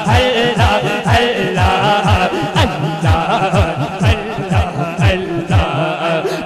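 Devotional zikr chanting over a PA system: wavering chanted voices over a steady pulse of deep, falling beats, about three a second.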